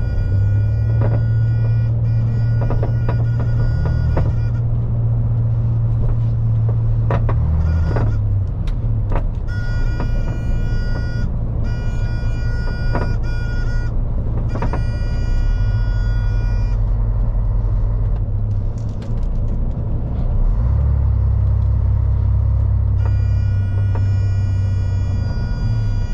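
2001 MAN lorry on the move, heard from inside the cab: a steady low engine and road rumble. Over it, a weird high whine cuts in and out in stretches of a few seconds, with scattered rattles.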